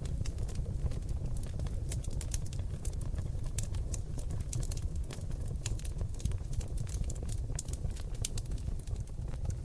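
Seasoned oak logs burning in a fireplace, crackling and popping with many sharp clicks a second over a steady low rumble of the fire.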